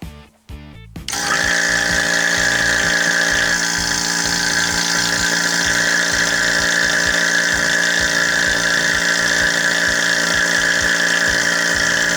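Electric rotary-vane HVAC vacuum pump switched on about a second in, then running steadily with an even motor hum and whine.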